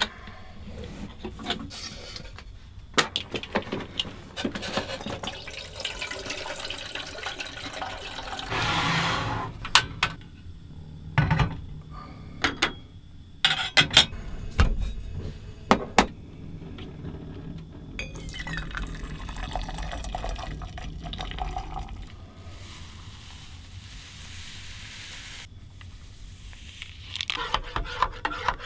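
Liquid being poured into a container, with sharp clicks and knocks of pots, utensils and containers being handled in a camp kitchen.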